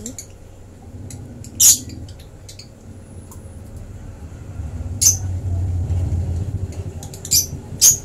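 Baby African lovebird giving short, sharp high squeaks while being hand-fed, four in all: one about a second and a half in, then three in the second half, the last near the end.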